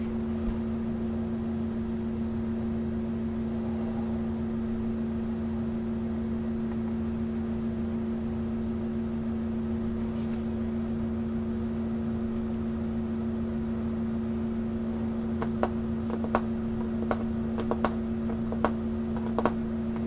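Steady electrical hum, and from about three-quarters of the way through a run of irregular clicks of typing on a computer keyboard.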